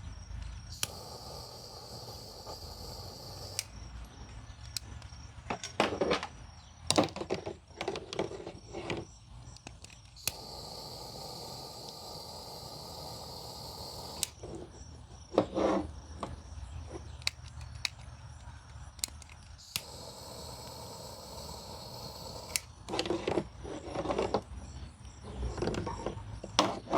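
Heat gun blowing in three bursts of a few seconds each, shrinking heat-shrink tubing onto a coax connector, with clicks and handling knocks of the cable and tools between the bursts.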